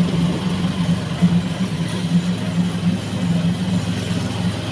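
Engine of an open-sided passenger vehicle running steadily as it drives along, a low hum that pulses slightly, with road and air noise, heard from a seat on board.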